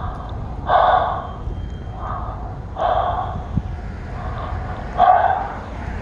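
A man breathing hard, close to the microphone: about five loud, breathy breaths, roughly one a second. He is winded, with his adrenaline up.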